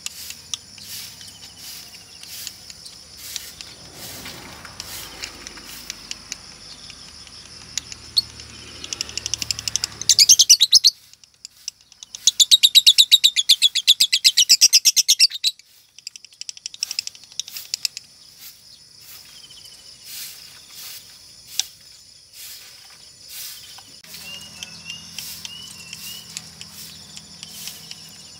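Female Fischer's lovebird calling with sharp scattered ticks and chirps. About a third of the way in it breaks into a short, loud, rapid trill and then a longer one of about three seconds: the chattering song that fanciers look for as a sign of a 'konslet' female.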